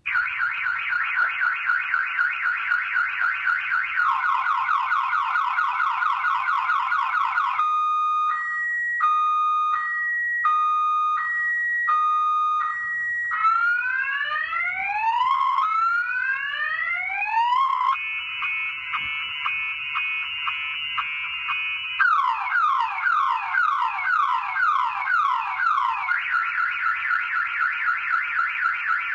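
Viper car alarm siren in panic mode, cycling through its electronic tones about every four seconds: a fast warble, a two-tone high-low alternation, rising whoops, a rapid chatter, falling sweeps, then the warble again.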